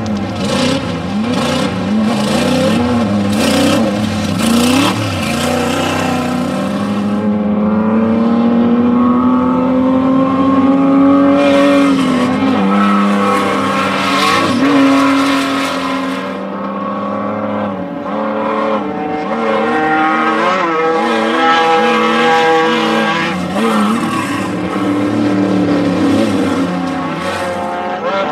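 Off-road desert race vehicle engines running hard. The pitch climbs and drops repeatedly with throttle and gear changes, and long stretches of rushing noise come and go over the engine.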